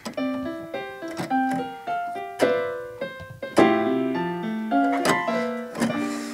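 Electronic keyboard played in a piano voice: uneven, halting single notes with a few chords struck together, each note starting sharply and dying away.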